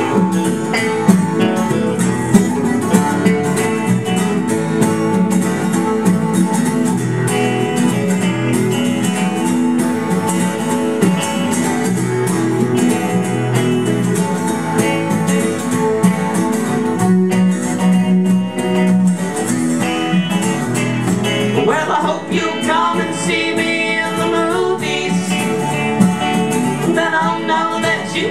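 Live country instrumental break on acoustic guitar, a Gibson SJ200, strummed in a steady rhythm. A bending melodic lead line comes in over it in the second half.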